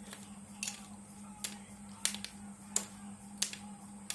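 Sharp clicks repeating at a fairly even pace, about every two-thirds of a second, over a steady low hum.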